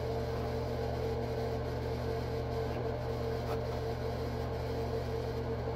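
Steady electrical hum: a low, unchanging drone with a faint higher tone above it.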